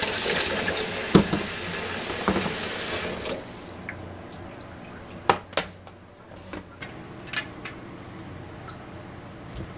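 Tap water running into a metal pot in a sink, with a couple of knocks, for about three seconds; then the water stops and a few light clicks and taps follow.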